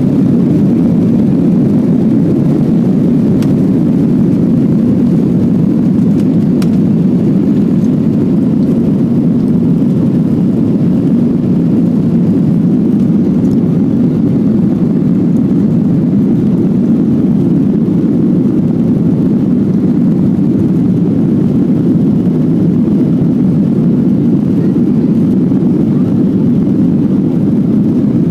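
Boeing 737-800 cabin noise at takeoff thrust, heard from a window seat: a loud, steady low rumble of its CFM56-7B engines and airflow through liftoff and the initial climb.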